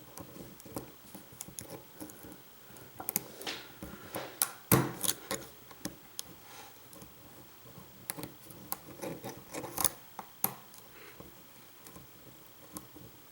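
Lock picking in a five-pin pin-tumbler lock: the metal hook pick and tension wrench make scattered small clicks and scrapes as the pins are worked, with one sharper click about five seconds in.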